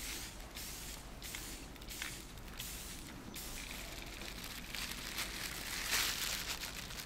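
Aerosol spray-paint can hissing, first in several short squirts, then in a longer, steadier spray that is loudest about six seconds in.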